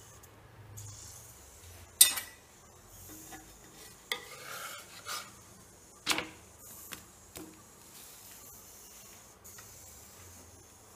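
Steel cookware clattering on a gas stove: one sharp metal clank about two seconds in, then softer knocks and scraping near four and six seconds and a few light ticks, as a chapathi is shifted from a steel plate onto a tawa to heat.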